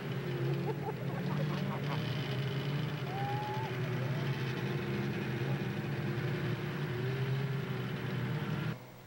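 Snowmobile engine running at a steady speed. The sound drops off abruptly near the end.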